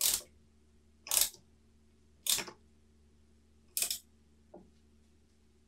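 Ratchet socket wrench clicking in four short runs about a second apart as a bicycle crank arm bolt is tightened onto the bottom bracket, then one fainter click.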